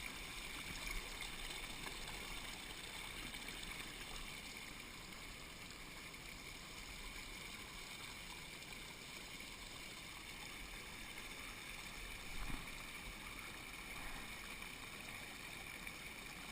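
Steady rush of a mountain torrent's water, with a couple of faint brief knocks.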